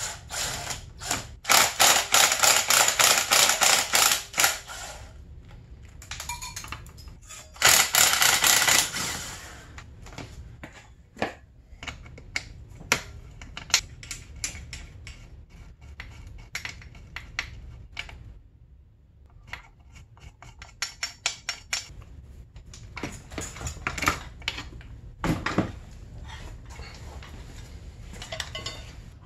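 Cordless impact driver hammering at a dirt bike's swing arm pivot bolt, in two bursts of rapid rattling impacts a few seconds long, the second about seven and a half seconds in. Then scattered metallic clicks and knocks as the loosened parts are worked free.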